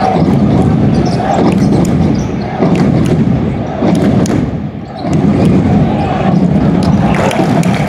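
Loud crowd noise filling a packed basketball arena during play, with many sharp thumps and clicks through it, and a short lull a little under five seconds in.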